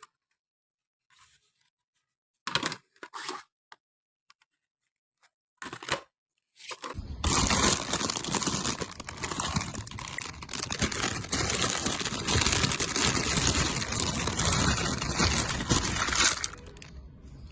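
A few short rustles or clicks, then about nine seconds of loud, dense crinkling and crackling noise that stops abruptly near the end.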